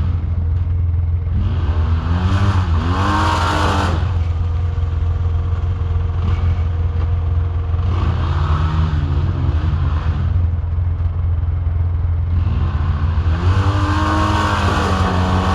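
ATV engine revved hard three times, its pitch climbing and falling each time, over a steady low rumble.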